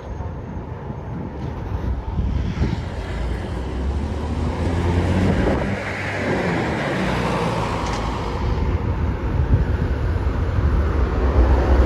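Road traffic passing close by. A vehicle's tyre and engine noise swells to a peak around the middle and fades away, over a steady deep engine rumble that grows louder near the end.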